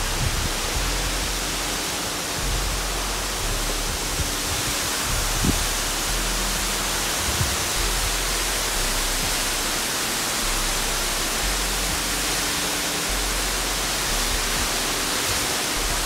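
Waterfall: a steady rush of falling water, even and unbroken throughout.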